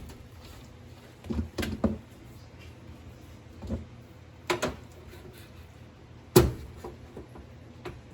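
Scattered knocks and clatters of hands and tools working on a heat pump unit: a quick cluster about a second in, a few single knocks, and the loudest, sharpest knock about six seconds in, over a faint steady hum.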